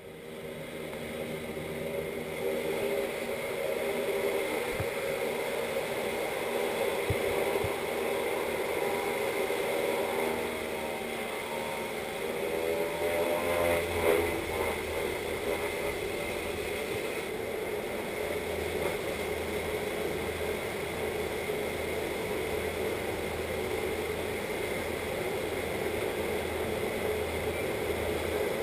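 Jump aircraft's propeller engine running hard during its ground roll, heard through the open door; the engine note builds over the first few seconds and its pitch wavers and bends around the middle.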